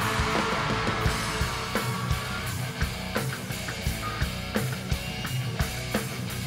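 Live rock band playing an instrumental passage: electric guitars over a drum kit keeping a steady beat of about two hits a second. Crowd cheering is mixed in at the start and fades out within the first second.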